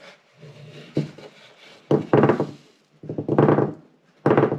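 Wooden seed tray being knocked and shaken in four short bursts about a second apart, with the loose alder seeds sliding and rattling across its floor toward one corner.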